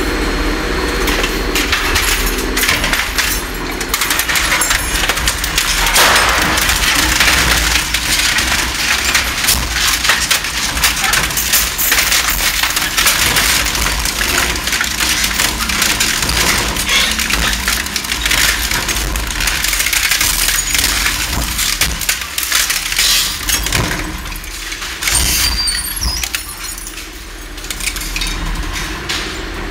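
Electric, inverter-driven, low-speed high-torque twin-shaft shredder (Lion Shredder EVO) tearing up a whole motorcycle: a dense, continuous crunching, cracking and snapping of metal and plastic breaking between the cutter shafts over the machine's low rumble. The crushing eases off near the end as the bike is used up.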